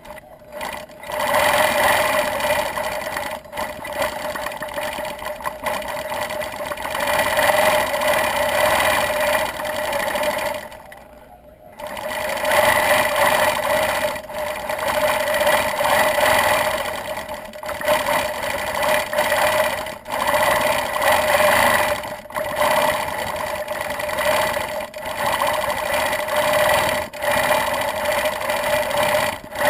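Gammill longarm quilting machine stitching with a steady fast hum. It stops for about a second roughly eleven seconds in and dips briefly several times as the quilter slows at the feather shapes.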